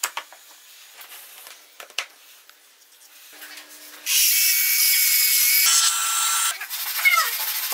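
A few light wooden knocks as joint pieces are handled. Then, about four seconds in, a hollow-chisel mortiser runs loud and steady for about two and a half seconds, its bit and square chisel boring a mortise into the wood.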